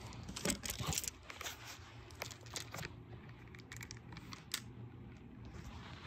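Hands handling small plastic toy pieces and wrapping: irregular crinkling and sharp little clicks. The busiest, loudest stretch comes about half a second to a second in.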